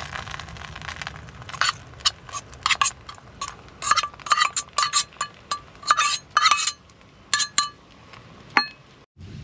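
Metal spoon scraping and then clinking against a stainless steel cup while knocking a potato-cheese mixture out of it: a quick, irregular run of sharp ringing clinks. Near the end the cup gives one last ringing clink.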